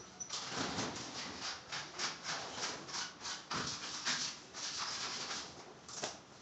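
Quick rubbing strokes on ceramic wall tiles, about three a second, as grout is worked into the tile joints by hand.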